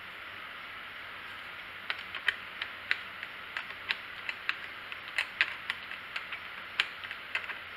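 Short wrench clicking in quick, irregular strokes, several clicks a second, starting about two seconds in, as the carburetor mounting nuts on a Stihl 290 chainsaw are snugged down.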